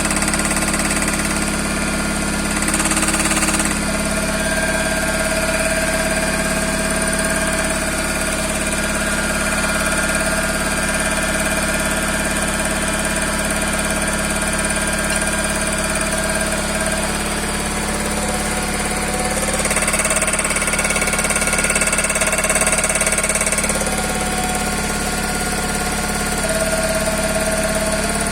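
Toyota Corolla's 5E-FE four-cylinder engine idling steadily with a knock in it, the engine fault being shown.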